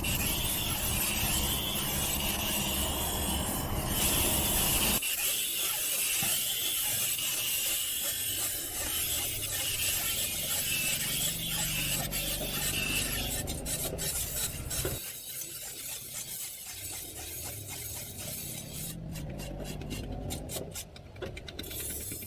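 Metal file rasping against the steel of a hand-forged sickle blade in continuous scraping strokes, with a quick run of sharp clicks near the end.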